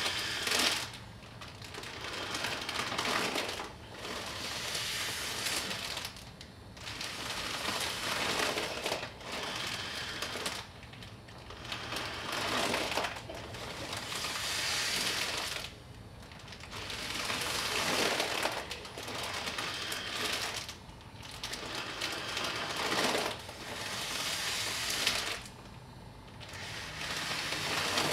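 A clear plastic bag joining two face masks, crinkling and crackling as two people breathe in and out through it. The crackling swells and drops every few seconds, with short quieter gaps between breaths.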